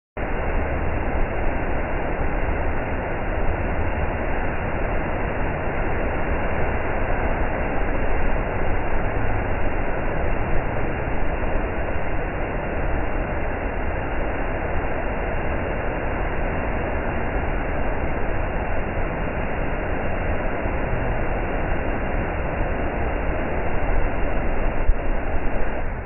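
Waterfall plunging into its pool, heard close to the base: a steady, unbroken rush of falling water.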